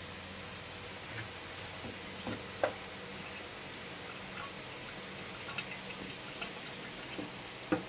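Knife and frog being handled on a wooden cutting board: a few small taps and clicks, the sharpest about two and a half seconds in and near the end, over a steady low hum. Short high chirps come twice in quick succession about four seconds in.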